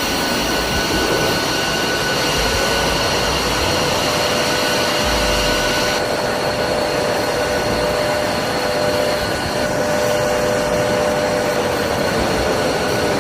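Jet engine running steadily, with a constant high whine over a dense rush of noise.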